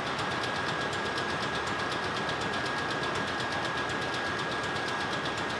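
Ship's two-stroke marine diesel main engine running, heard as a steady engine-room din with a fast, even ticking and a steady high whine over it.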